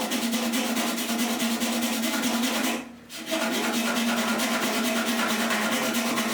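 A small electric power tool running with a steady hum, its work against the piece making a fast, even scraping or sanding rhythm. The sound drops out briefly about three seconds in and then resumes.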